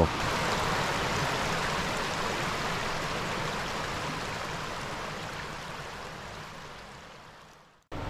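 Waterfall and stream cascades rushing steadily. The sound fades out gradually over the last few seconds.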